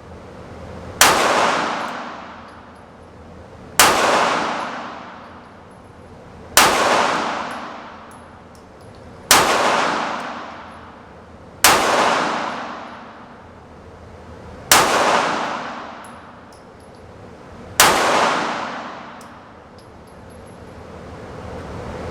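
Sig Sauer P365XL 9mm pistol fired seven times in slow aimed fire, a shot every two to three seconds, each sharp report followed by a long echo that dies away.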